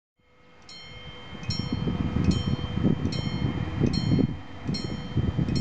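Italian level-crossing warning bell striking steadily, about one strike every 0.8 seconds, as the barriers come down to signal an approaching train. A low, uneven rumble of wind on the microphone runs underneath.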